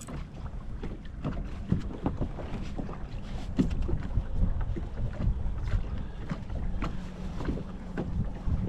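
Small waves lapping and slapping against the hull of a bass boat, with wind buffeting the microphone and scattered small knocks.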